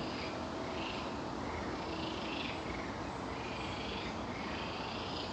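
A chorus of many frogs calling together, a steady overlapping croaking.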